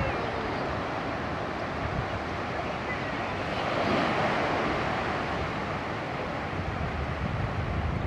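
Small waves washing onto a sandy beach, with the surf swelling up about halfway through, and wind rumbling on the microphone.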